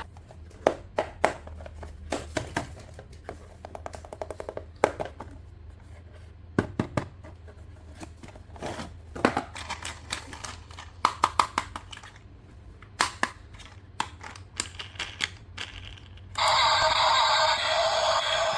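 Plastic toys and packaging being handled: irregular clicks, knocks and rustles over a faint low hum. About two seconds before the end, a much louder electronic sound made of several steady tones starts.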